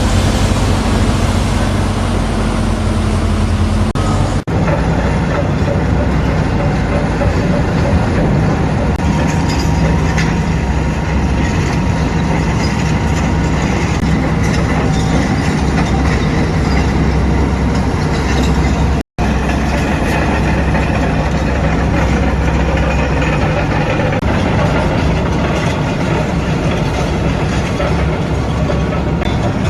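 Heavy earthmoving machinery running under load: a deep diesel engine drone with steady clattering and rumbling. The sound breaks off for an instant about four seconds in and again about nineteen seconds in.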